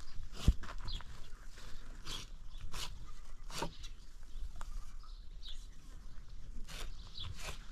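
A knife cutting and scraping through a slaughtered goat's hide and fur in short, irregular strokes, with a knock about half a second in. A few brief high chirps of small birds come in between.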